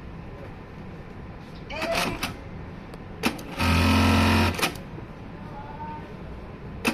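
JACK computerized bartack sewing machine sewing one bartack. There is handling clatter about two seconds in and a click just after three seconds. About a second of fast, steady needle running follows and ends in a click. Another sharp click near the end starts the next cycle.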